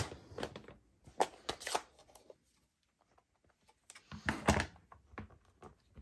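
Light taps and clicks of rubber-stamping: a clear stamp being inked on an ink pad and pressed onto card stock. A few sharp taps come a second or so in, then a louder knock with small clicks about four and a half seconds in.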